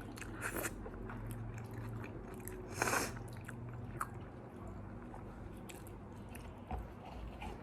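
Close-up chewing and biting of McDonald's fast food, with small clicks and one louder crunch about three seconds in, over a steady low hum.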